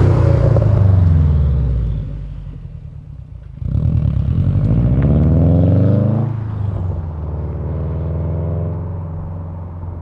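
Subaru WRX STI's turbocharged 2.5-litre flat-four running through a COBB titanium cat-back exhaust with 3-inch downpipe. It passes close with the exhaust note falling. About three and a half seconds in it pulls away hard with the revs climbing, drops revs on a gear change about six seconds in, then keeps accelerating more quietly as it moves away.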